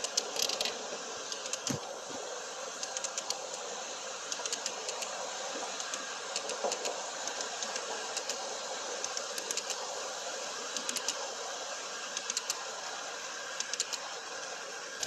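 Large-scale garden model railway double-stack container well cars rolling past on the track: a steady rolling hiss with many sharp clicks from the wheels on the rails.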